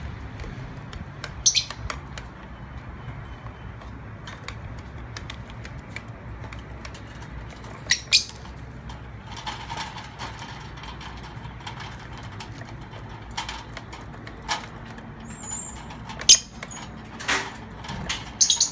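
Peach-faced lovebirds giving short, sharp high-pitched chirps now and then, closer together near the end, over a low steady hum.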